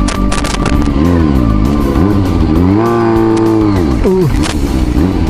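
Kawasaki ZRX400 inline-four engine running under the rider, its revs falling and rising: a climb and hold about three seconds in, then a sharp drop just after four seconds before it picks up again. Background music with guitar plays underneath.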